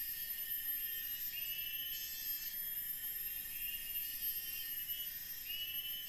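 Tropical forest insects calling: a steady high-pitched buzz with short chirping phrases repeating every second or two.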